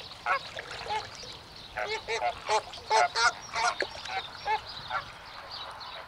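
Greater flamingos giving goose-like honking calls: a quick series of short nasal honks, busiest and loudest in the middle.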